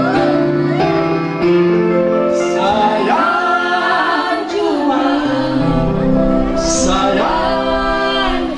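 Music: a woman singing a song over sustained instrumental chords.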